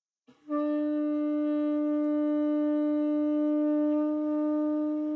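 A shofar blown in one long, steady held note that starts about a third of a second in and carries on unbroken.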